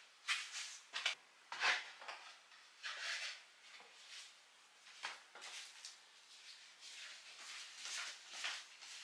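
Kitchenware being handled and put away: a string of short, irregular knocks, clatters and scrapes.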